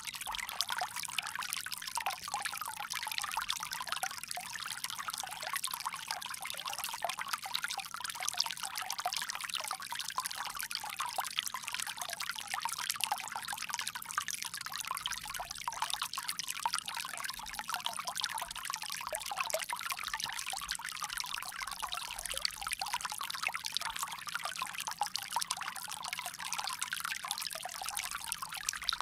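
Water pouring and trickling steadily from a bamboo spout.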